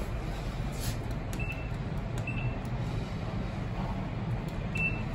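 Three short high electronic beeps from a Hitachi elevator's car operating panel as floor buttons are pressed, the last as the B1 button is pushed, over a steady low rumble.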